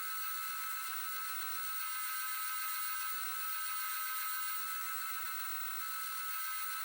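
Belt grinder running at slow speed with a contact-wheel attachment: a steady whir with a constant high whine, unchanged throughout, as a razor blade's hollow grind is worked.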